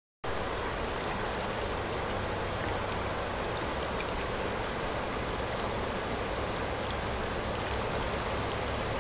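Fast river current rushing over a riffle: a steady, even rush of water that starts suddenly about a quarter second in. A faint, short, high chirp recurs every second or two.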